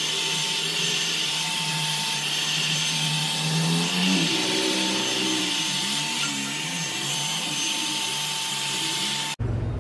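Handheld hair dryer blowing on wet hair, running steadily at full blast; it cuts off suddenly near the end.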